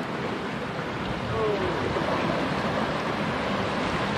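Sea waves washing and breaking against rocks, a steady rush of surf.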